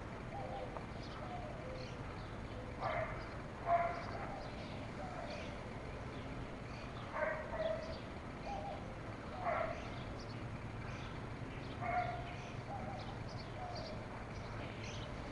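A dog barking: about six single barks spaced a few seconds apart.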